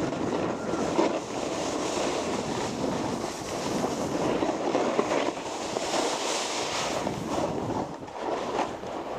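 Snowboard sliding and scraping over packed snow at speed, with wind rushing over the camera microphone; the scrape eases briefly near the end.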